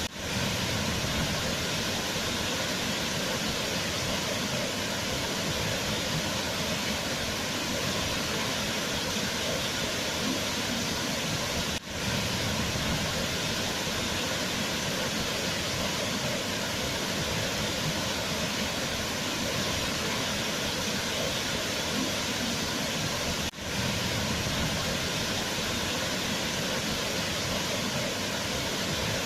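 Waterfall, water falling and splashing in a steady, even rush, with a brief drop in level twice.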